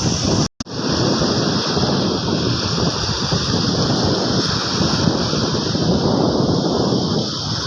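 Surf washing on a beach with wind buffeting the microphone, a steady rushing noise that cuts out for an instant about half a second in.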